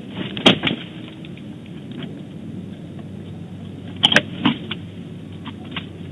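Bald eagle landing on a stick nest: a cluster of sharp knocks and clatters about four seconds in as it comes down onto the branches. There are two earlier sharp knocks about half a second in and a few light clicks near the end, over steady nest-cam background noise.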